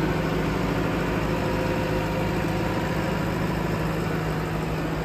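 Diesel engine of a JCB Hydradig wheeled excavator running steadily at idle, a constant low hum with no change in speed.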